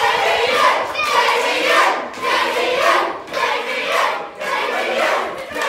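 A crowd of children and adults cheering and chanting together, with short dips about once a second.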